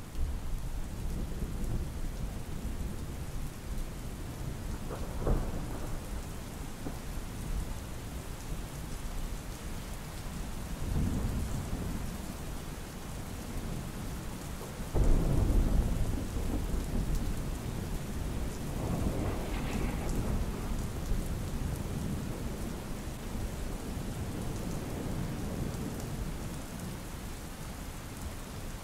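Steady rain with rolling thunder: several low rumbles, and a sudden louder thunderclap about halfway through that rumbles on for a few seconds.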